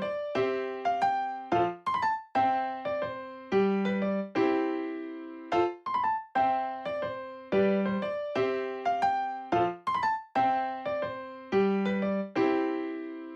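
Background music: a gentle electric piano melody, single notes struck and left to decay in a steady repeating pattern.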